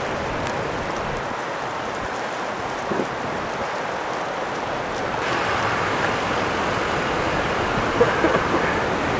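Floodwater from an overflowing river rushing in a steady hiss, growing somewhat louder about five seconds in.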